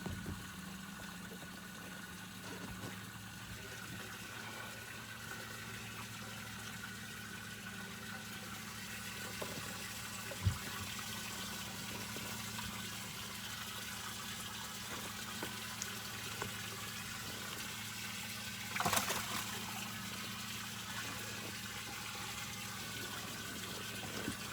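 Small electric motor humming steadily over running, trickling water. There is a short louder splash or rustle about three quarters of the way through.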